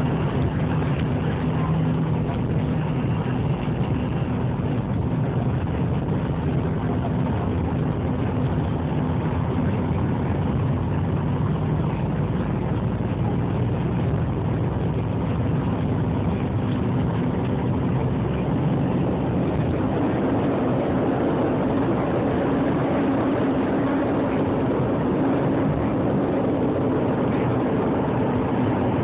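Cabin noise of a McDonnell Douglas MD-88 on its takeoff roll and lift-off: its two rear-mounted Pratt & Whitney JT8D turbofans running at takeoff power, a loud, steady rush of engine noise with a low hum underneath.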